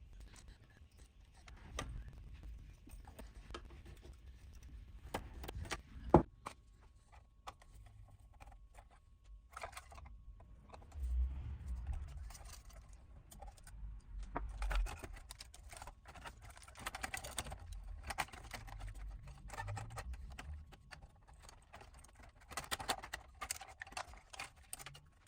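Irregular small clicks, taps and rustles of hands working with tools and small parts on a workbench, with one sharp click about six seconds in and bursts of rustling later.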